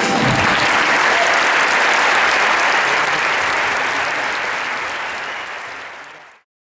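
A large audience applauding right after the band's music stops, the clapping steady, then fading away and cutting off about six seconds in.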